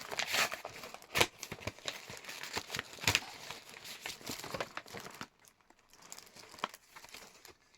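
Paper crinkling and rustling with sharp crackles as a gift's wrapping is handled and opened; it goes quieter after about five seconds.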